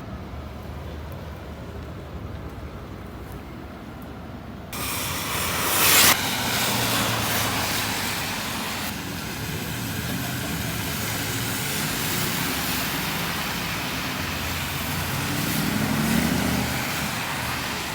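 Street traffic on a wet road: a low engine rumble, then from about five seconds in a loud steady hiss of tyres and rain, with a brief louder swell about a second later.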